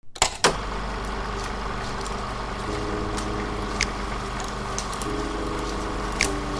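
Film projector running, a steady mechanical whir that starts abruptly, with a few sharp clicks near the start and now and then after.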